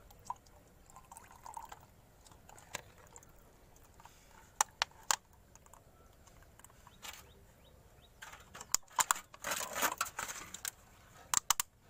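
Used engine oil draining from a Bajaj Platina's sump drain hole during an oil change, pouring and dripping into a plastic bottle. A cluster of sharp clicks and rustling about nine seconds in.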